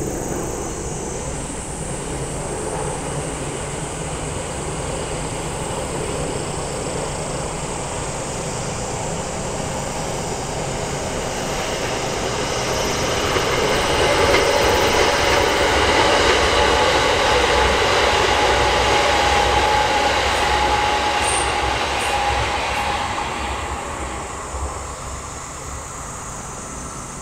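A 681 series limited express electric train passing at speed. Its running noise builds over several seconds, is loudest while the train is closest, with a steady whine, then fades away.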